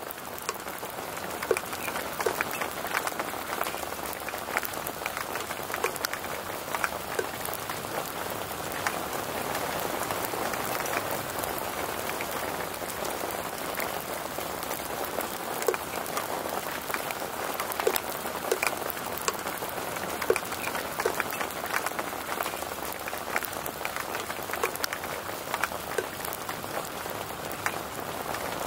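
Hail falling onto a gravelly tarmac driveway: a steady hiss with many sharp ticks of stones striking the ground.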